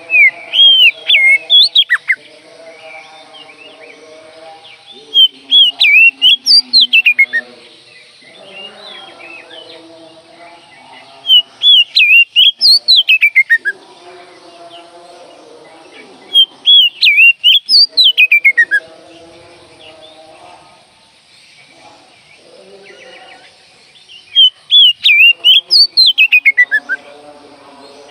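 Oriental magpie-robin (kacer) singing loud, repeated song phrases: five times, roughly every five to six seconds, a quick run of high whistled notes that ends in a falling slur.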